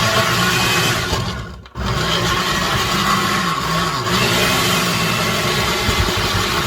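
Countertop blender motor running at full speed, chopping tomatoes and garlic in vinegar; it cuts out for a moment nearly two seconds in and starts again, its pitch wavering as chunks catch on the blades.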